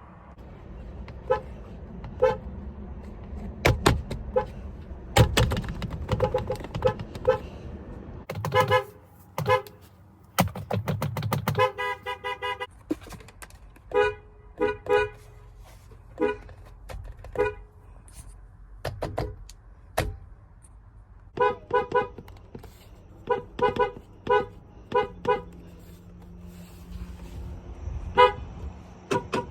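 Car horn tooted over and over in short taps at an uneven pace, with a longer blast of a fuller tone about twelve seconds in.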